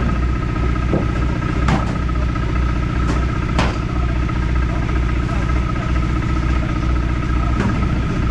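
Engine running steadily, with a constant high whine over its low hum and a few sharp knocks and clatters, the loudest about three and a half seconds in.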